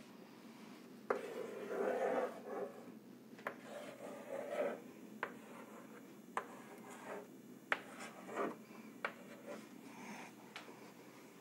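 Chalk drawing on a chalkboard: a sharp tap each time the chalk meets the board, followed by short scratchy strokes, repeated several times.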